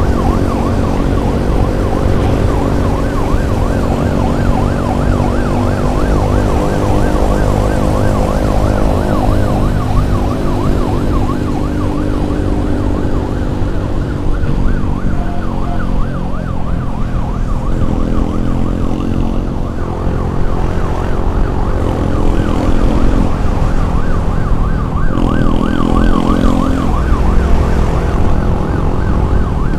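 Electronic emergency siren wailing in a fast up-and-down yelp, over a steady low rumble of engine and road noise.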